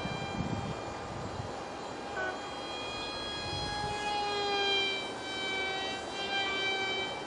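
Whine of a tiny 8 mm motor spinning a direct-drive propeller on an ultra-micro foam RC jet flying overhead, its pitch shifting up and down in the middle as it manoeuvres.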